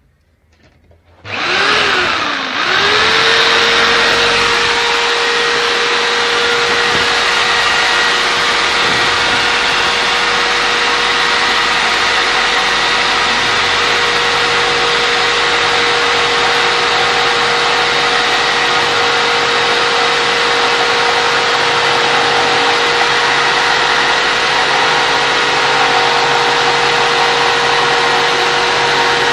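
A jigsaw, mounted upside down as a makeshift bandsaw, starts about a second in, its motor winding up in pitch. It then runs steadily while its blade saws through a wooden board.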